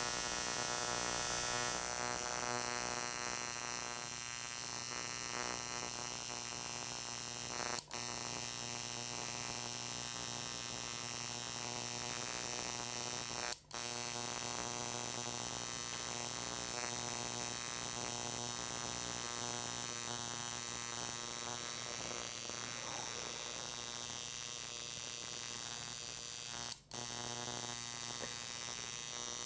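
Electric coil tattoo machine buzzing steadily as its needle works ink into the skin of a forearm, cutting out briefly three times when the artist lifts off.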